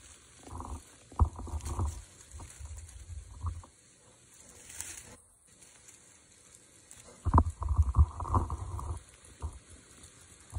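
Dry leaf litter rustling and crackling as kittens move through it, with low rumbling bumps on the microphone, in two main bursts: about half a second in, and again from about seven to nine seconds.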